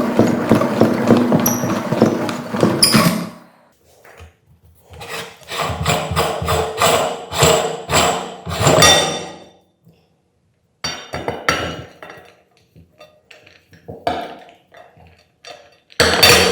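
Meat grinder crushing hard objects: bursts of clattering knocks and sharp cracks, broken by short pauses.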